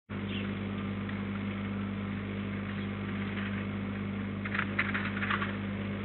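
Steady low electrical hum with a constant hiss, with a short cluster of brief, higher-pitched sounds about four and a half seconds in.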